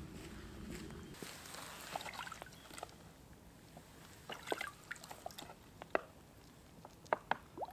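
Plastic bottle held under the surface of a shallow pool and filling with water: gurgling and scattered short plinks as air bubbles escape, some rising in pitch, growing louder near the end.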